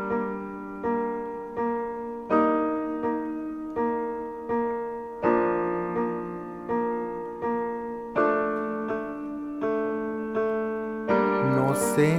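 Slow piano intro to a song: chords struck about every three-quarters of a second, each ringing out and fading. Near the end a drum beat with hi-hats comes in.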